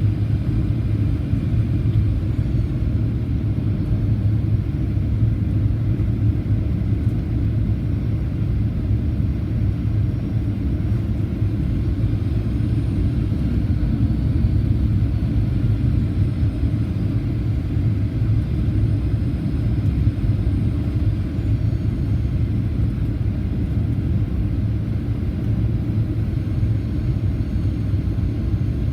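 Cabin noise of a Boeing 737-800 in flight, heard from a passenger seat: the steady low rumble of its CFM56 engines and the airflow, with faint high whines that drift slightly in pitch.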